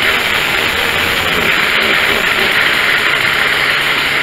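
Poulan two-stroke chainsaw engine running steadily, with no change in speed, its carburettor's high-speed mixture just set to a full-bodied sound.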